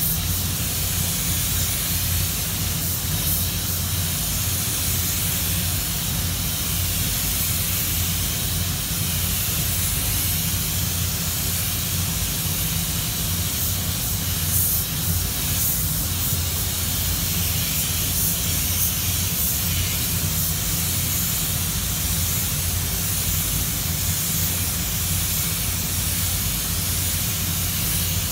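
Compressed-air spray gun hissing steadily as it sprays base-coat paint, over a steady low hum.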